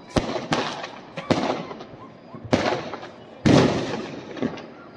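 Diwali firecrackers bursting: about six sharp bangs at uneven intervals, the loudest about three and a half seconds in, each trailing off with a short ringing tail.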